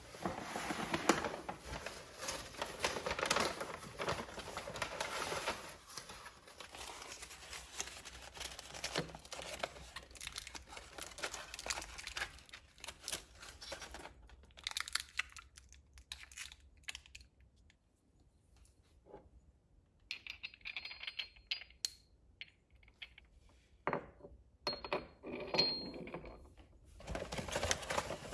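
Kitchen handling sounds: rustling and tearing, dense for the first several seconds, then scattered rustles and small clicks and knocks, with another spell of rustling near the end.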